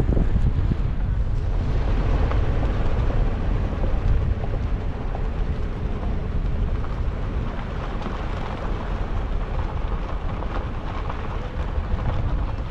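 Vehicle driving on a rough sandy dirt road: a steady rumble of engine and tyres, with wind buffeting the microphone.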